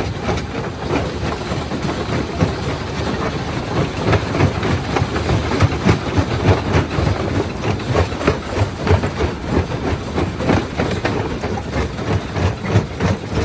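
Primary jaw crusher crushing rock: a dense, steady clatter of knocks and cracks over a low rumble.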